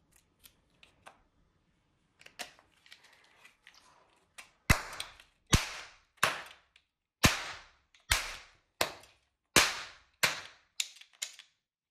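Gold toy Desert Eagle pistol being fired: after a few faint handling clicks, about ten sharp shot sounds, each with a short fading tail, come one every half second to a second from about four and a half seconds in.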